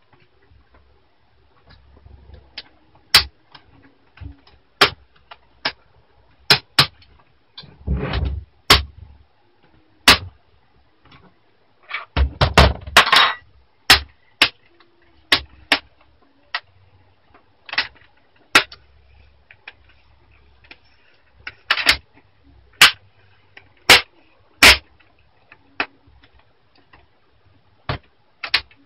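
Plastic screen bezel of a Fujitsu Lifebook A544 laptop being prised off: a long run of sharp, irregular clicks and snaps as its clips pop loose, with bursts of handling and scraping noise in between.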